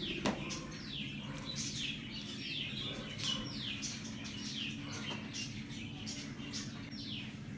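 A bird chirping repeatedly, short falling notes about twice a second, over a low steady hum.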